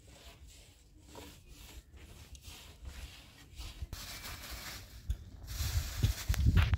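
A tool rubbing and scraping over a hard surface in repeated strokes, faint at first, then louder and denser over the last few seconds with some low thumps near the end.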